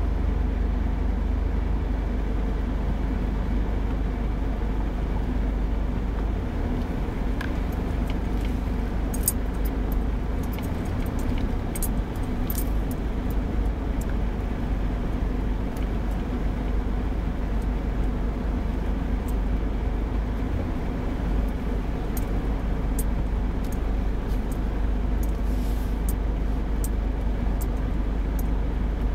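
Steady low rumble of a Mitsubishi Pajero 4WD on the move, heard from inside the cabin. Scattered light clicks and rattles start about a quarter of the way in, once it is driving over rough grassy ground.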